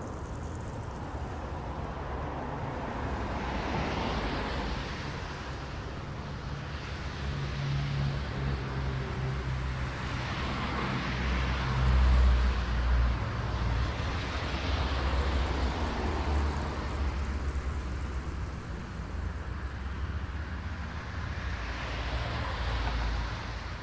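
Road traffic: several cars pass one after another, each a swell of tyre and engine noise that rises and fades away, over a steady low rumble.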